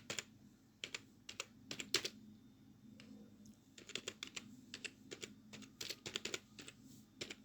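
Computer keyboard being typed on: faint, irregular keystrokes in short runs with pauses between them.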